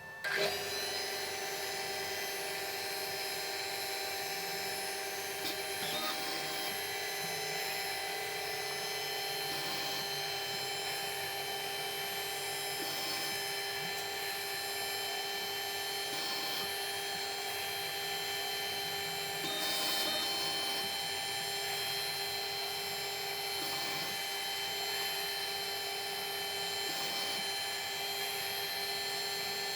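Milling machine running steadily, its cutter machining a radius onto the bottom edge of a small metal toolbox-catch part, with a motor whine made of several steady tones. Faint light ticks come every couple of seconds, and the sound swells a little about twenty seconds in.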